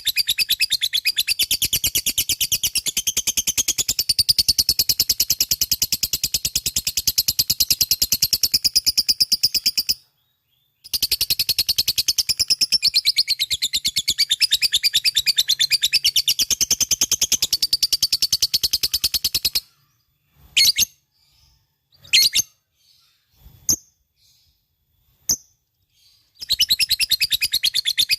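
Lovebird ngekek: long, very rapid, high-pitched chattering trills. The first runs about ten seconds and, after a one-second break, a second runs about eight more. A few short separate chirps follow before the trill starts again near the end.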